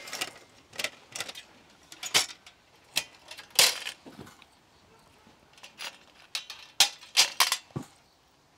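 Metal panels and grate of a Lagren folding barbecue grill clinking and rattling as they are lifted out of their cardboard box and handled, in scattered irregular clinks with a quieter stretch in the middle.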